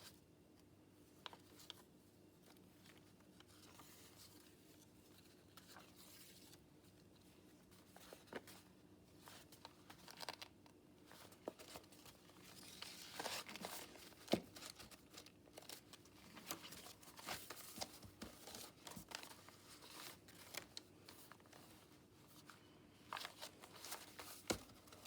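Quiet rustling and crinkling of paper sheets being handled and shuffled into place, with scattered small taps and clicks, busier from about a third of the way in.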